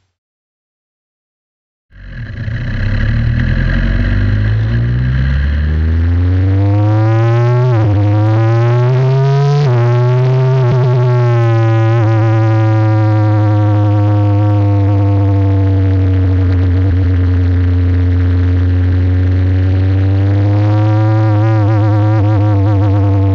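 Engine of a Tatuus Formula 4 single-seater, Abarth 1.4-litre turbo four-cylinder, cutting in after about two seconds of silence. It pulls away with the revs climbing twice, each time dropping sharply at an upshift, then runs steadily in third gear at around 3,000–3,500 rpm, the pitch sinking slowly and lifting a little near the end.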